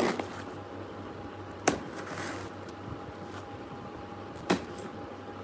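A delivery parcel being handled before opening: two sharp knocks a few seconds apart and a brief rustle between them, over a steady low hum.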